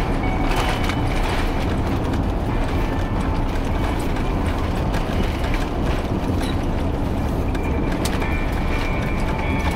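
Steady low rumble heard inside the cabin of an Airbus A350-900, with light clicks and rattles from the cabin fittings.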